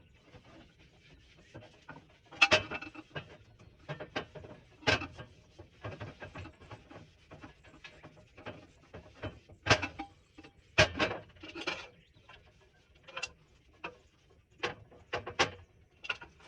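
Cast iron tea kettle being handled while it is coated with vegetable shortening: scattered sharp knocks and clinks at irregular intervals. The louder ones come about two and a half seconds in, around five seconds, and a cluster around ten to twelve seconds.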